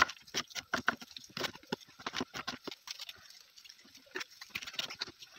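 A chef's knife chopping an onion on a wooden cutting board: a quick, uneven series of knocks as the blade strikes the board, several a second.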